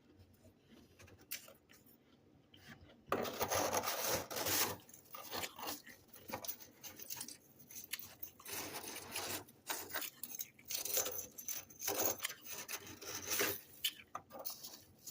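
Freezer frost being scraped: a dense run of rasping scrapes that starts suddenly about three seconds in and thins out near the end, after a few faint clicks.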